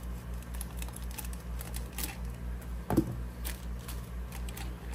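Faint clicks and crinkles of a plastic shrimp shipping bag being handled and cut free with a razor knife, with one sharper knock about three seconds in. A steady low hum runs underneath.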